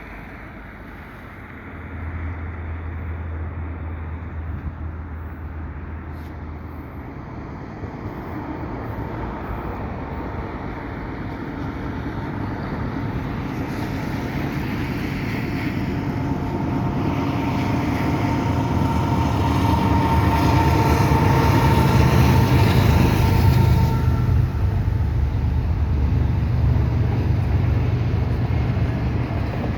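Westbound double-stack freight train led by GE ES44AC diesel locomotives approaching and passing close by. The engine sound builds steadily, peaks about two-thirds of the way through with a steady whine over the low rumble, then carries on as the train runs past.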